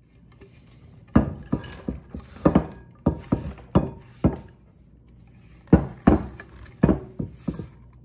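Kitchen utensils knocking against dishes: about fifteen sharp, irregular thunks and clinks, some with a short ring. They come in two clusters with a lull around the middle.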